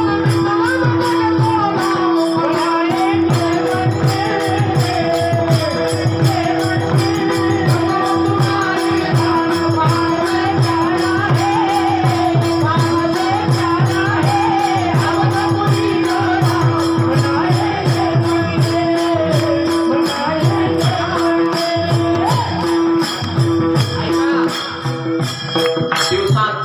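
Devotional bhajan music: a steady held drone under a wavering melody, with regular drum strokes and jingling hand cymbals keeping the beat.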